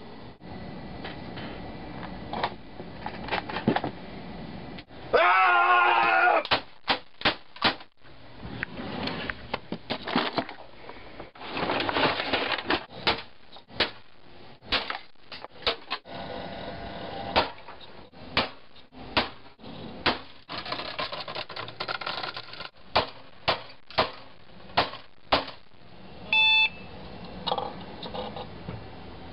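A desktop computer being smashed: many separate sharp blows and cracks of plastic and metal casing, with clattering between them. A loud wavering sound lasts about a second, about five seconds in, and a short beep sounds near the end.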